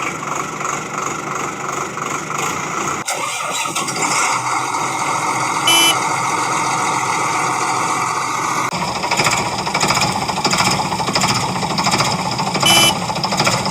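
Vehicle engine running steadily, its sound changing about three seconds in and again after about nine seconds. A brief pitched horn-like blip comes about six seconds in and again near the end.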